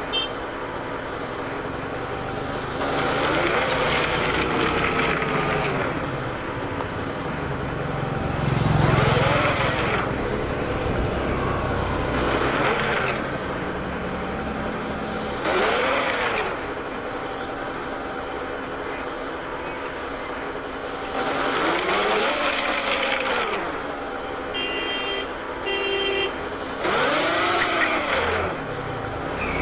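Motor vehicle engines revving up and falling back several times, a few seconds apart, over a low rumble. Near the end there are two short bursts of electronic beeping.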